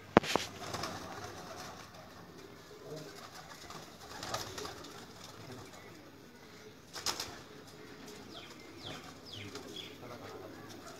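Domestic pigeons cooing in a wire-mesh rooftop loft, with a sharp click just after the start and two softer knocks about four and seven seconds in as the loft's birds are handled.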